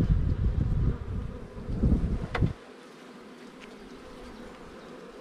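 Honeybees buzzing steadily around a brood frame held close. For the first two seconds or so a low rumble on the microphone sits under the buzz, with a single sharp click about two and a half seconds in; after that the buzz goes on alone, quieter.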